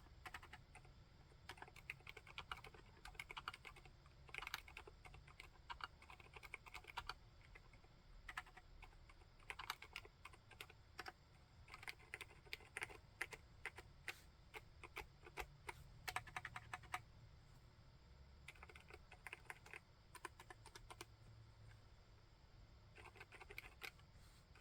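Typing on an Akko Monsgeek M3 full-aluminium tenkeyless mechanical keyboard fitted with Haimu Seasalt silent switches: quiet, muted keystrokes in quick runs with short pauses between.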